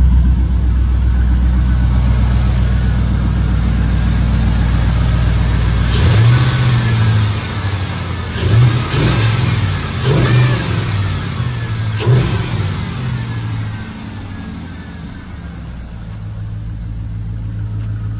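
Car engine idling steadily, then revved in several short blips from about six seconds in, before settling back to a quieter idle. It is running with a newly fitted idle air control valve.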